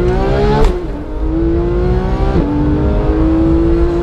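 Porsche 911 GT3 flat-six accelerating, heard from inside the cabin, with its note climbing and then dropping sharply at two upshifts, about half a second in and again about two and a half seconds in.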